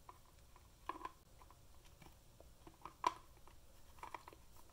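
Faint, scattered clicks and taps of plastic as the UE Roll speaker's housing parts are handled and turned in the hands, the loudest about three seconds in.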